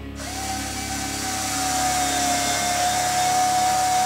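Small handheld electric drill-driver starting up and running at one steady speed, with a steady whine over a hiss, running a control-horn screw down into a model airplane wing.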